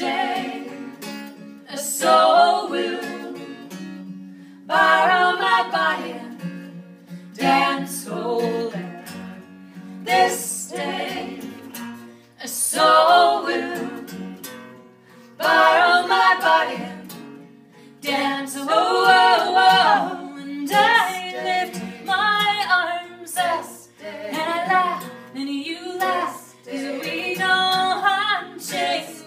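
Women singing a folk song in phrases a few seconds long, with short breaths between them, over low sustained instrumental notes.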